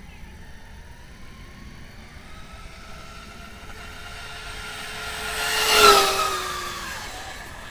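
Pro-Line Pro-MT 4x4 1/10-scale electric RC monster truck on a full-throttle speed pass: the whine of its motor and drivetrain rises in pitch and grows louder as it accelerates toward the microphone. It is loudest as it passes, about six seconds in, then drops in pitch and fades as it speeds away.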